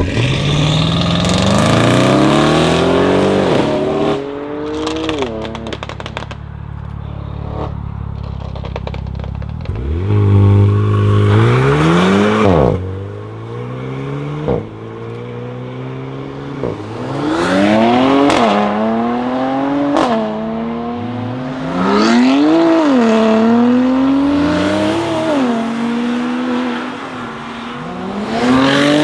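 Audi RS7 C7's twin-turbo 4.0 V8 through a decatted Akrapovic exhaust, accelerating hard several times. The engine note climbs, then drops back at each upshift. A few sharp crackles come as the throttle closes, about five seconds in.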